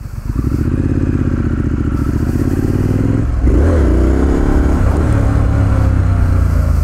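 Motorcycle engine pulling away under hard throttle, the revs climbing, breaking off briefly about three seconds in as a gear is changed, then climbing again and levelling off.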